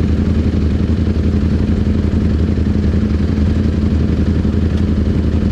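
Ducati Panigale V4 and the superbikes beside it idling together, a steady low engine note that neither rises nor falls.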